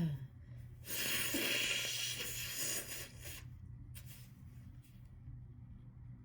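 The falling tail of a sneeze right at the start, then a person blowing their nose hard into a tissue, a noisy blast of about two seconds from about a second in. A short burst of breath follows near four seconds.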